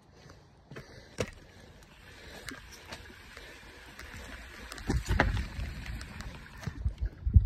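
Mountain bike riding fast along a dirt forest trail: tyre noise on the dirt with clicks and rattles from the bike. Heavier low thumps come about five seconds in and again just before the end, the loudest near the end.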